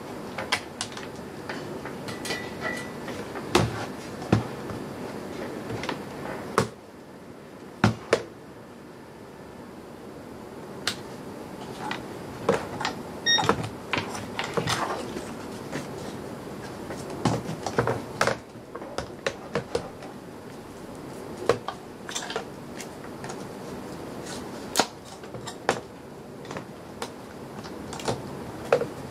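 Irregular clicks, taps and knocks of hands handling a plastic RC transmitter, cables and plug connectors, over a steady background hiss.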